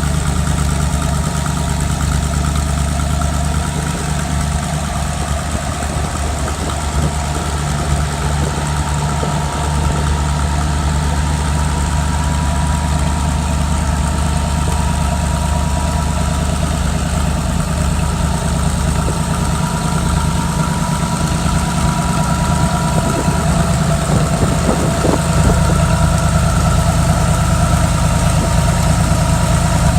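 Ford irrigation engine running steadily at a constant speed, a continuous low, even drone that grows a little louder near the end.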